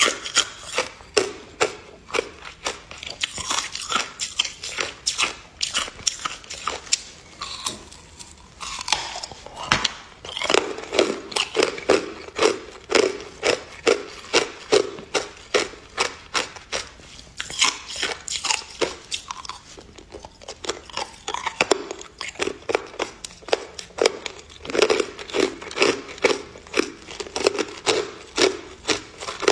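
Hard clear ice being bitten and chewed: a steady run of sharp crunches and cracks, several a second.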